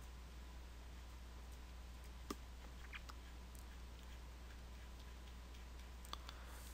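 A handful of sparse, faint clicks from working at a computer, the sharpest about two seconds in and a quick pair near the end. Under them runs a steady low electrical hum.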